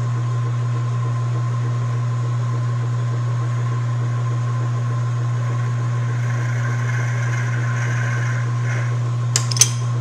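South Bend 13-inch metal lathe running steadily with its feed drive gears disengaged: a steady low hum with a constant higher tone over it. A faint higher hiss for about two seconds past the middle as the center drill cuts into the bronze bar, and a short metallic clank near the end.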